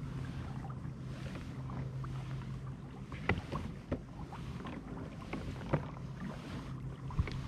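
A kayak moving through the water: a steady low hum and water washing along the hull, with a few sharp knocks in the second half.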